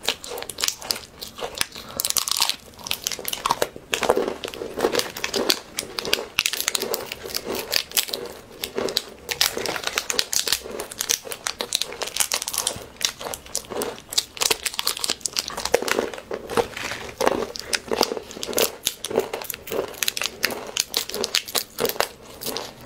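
Crinkling plastic snack wrappers being handled and snipped open with scissors, in an irregular run of rustles and clicks, with crunchy bites and chewing of a crisp snack bar.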